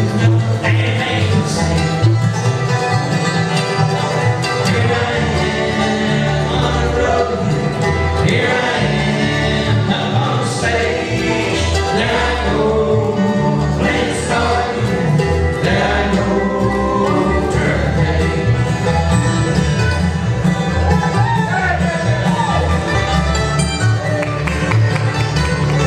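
Live bluegrass band playing: acoustic guitar, upright bass, mandolin and five-string banjo.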